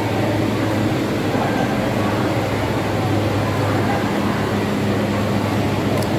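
Steady low hum under a constant wash of background noise, with faint crowd chatter.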